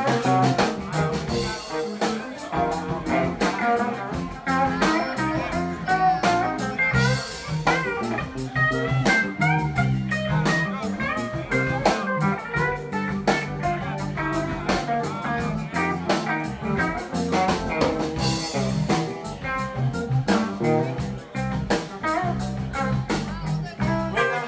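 Live blues band playing an instrumental passage: electric guitar lead with bent notes over electric bass and a drum kit with busy cymbals.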